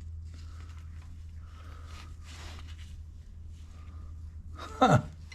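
Faint, scattered handling noises over a low steady hum, ended by a short vocal sound from a man, falling in pitch, about five seconds in.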